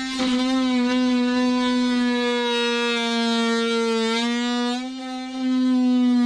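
Cordless DeWalt power tool, most likely an oscillating multi-tool, cutting through the boat's fibreglass and plastic lining: a steady buzzing tone whose pitch sags briefly as the blade loads up about four seconds in, with a short dip in level about a second later.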